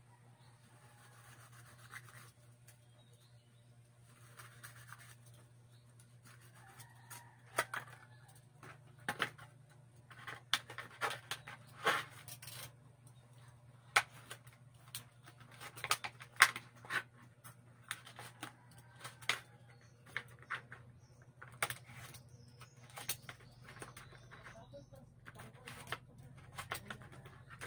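Scattered clicks, taps and light scrapes of hose fittings and small plastic and metal parts being handled and pushed onto a home-built silent air compressor, sparse at first and busiest from about a third of the way in. A faint steady low hum runs underneath.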